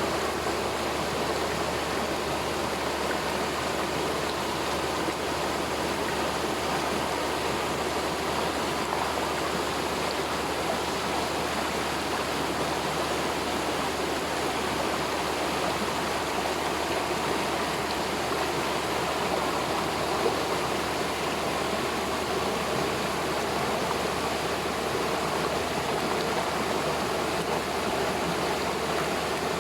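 Small waterfall and stream rushing steadily over rocks.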